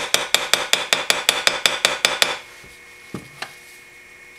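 Small hammer peening the pins of a straight razor on a vise anvil: a quick, even run of about a dozen light, ringing metallic taps, some five a second, that stops a little over two seconds in. A couple of faint clicks follow.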